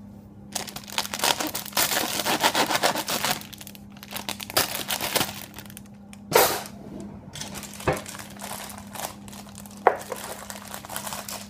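Clear plastic bag crinkling and rustling as it is handled, in dense bursts through the first half, then a few separate sharp crackles.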